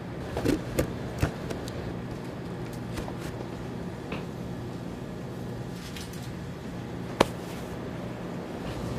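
Indoor room tone with a steady low hum, broken by a few sharp clicks and knocks: a cluster in the first second and a half and a single louder click about seven seconds in.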